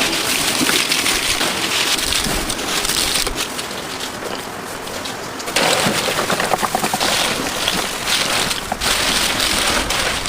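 Crispy fried food crackling densely and steadily; the crackle thins for a couple of seconds and comes back suddenly about halfway through.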